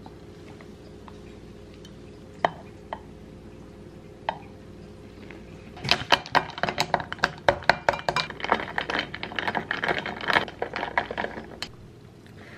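Ice cubes clinking against a glass as an iced coffee is stirred with a straw: a quick, irregular run of clinks starting about halfway in and lasting about six seconds. Before it, only a faint steady hum with a few single clicks.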